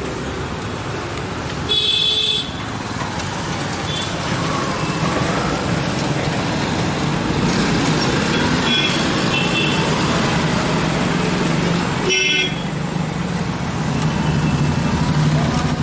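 Road traffic running steadily, with vehicle horns honking: a loud toot about two seconds in, shorter beeps a few seconds later, and another toot about twelve seconds in.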